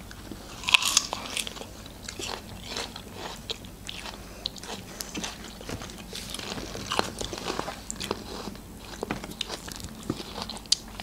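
Crunchy bites and chewing of firm, unripe green cherry plums (alycha), with the loudest crunch about a second in.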